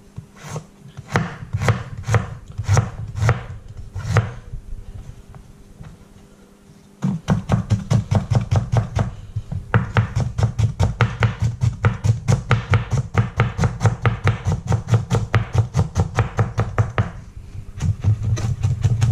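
Chef's knife cutting ginger on a plastic cutting board. It starts with irregular single slicing strokes, goes quiet for a few seconds, then about seven seconds in turns to rapid, steady mincing strikes.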